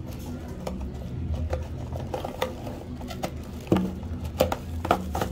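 Bubble wrap crinkling and a cardboard box rustling as a wrapped folding knife is handled and drawn out of the box, with irregular crackles, the sharpest a little over three and a half seconds in. A steady low hum runs underneath.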